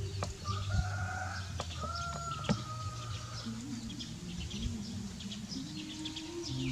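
Animal calls: a few drawn-out pitched calls in the first half, a lower wavering call in the second half, and faint chirping and ticking throughout.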